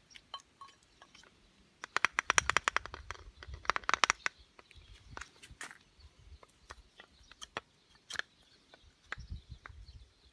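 Clatter of hand tools and metal parts during engine work: a fast run of about ten sharp clicks about two seconds in, another cluster near four seconds, then scattered single knocks.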